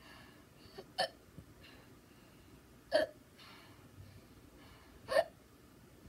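A person hiccuping three times, about two seconds apart, each hiccup short and sharp.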